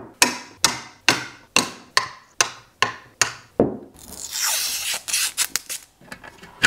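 Hand rubbing strokes, about nine of them in an even rhythm roughly two to three a second. A longer, hissier rub follows, then a few small clicks near the end.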